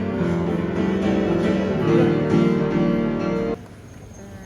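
Background music led by piano holds steady chords and a simple melody, then cuts off suddenly about three and a half seconds in, leaving quieter room sound.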